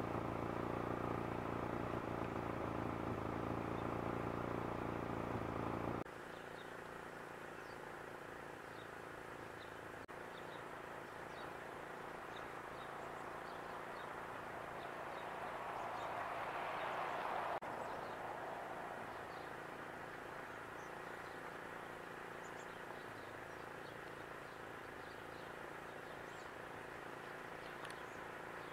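A steady engine hum stops abruptly after about six seconds. Steady outdoor background noise follows, with faint, scattered small-bird chirps. About halfway through, a rising rush of noise builds and then cuts off suddenly.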